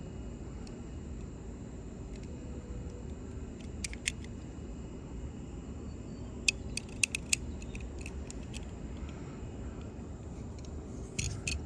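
Small sharp metallic clicks from handling a sterling silver utility knife: two about four seconds in, a quick run of four or five about seven seconds in, and a couple more near the end, over a steady low hum.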